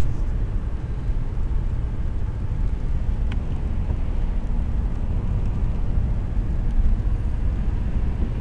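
Steady low rumble of a car's road and engine noise heard inside the cabin while driving on wet pavement, with one faint click about three seconds in.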